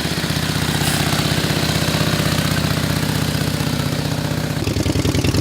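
Antique motorcycle engine running with an even, rapid pulse. Its sound changes about four and a half seconds in, with a stronger, deeper beat.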